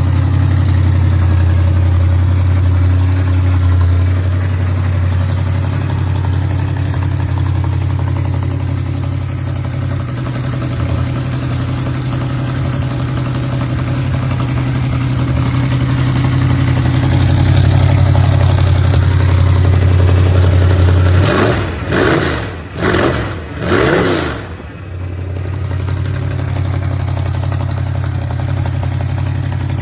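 A gasser drag car's engine idling loudly, then blipped three times in quick succession about three-quarters of the way through before settling back to idle.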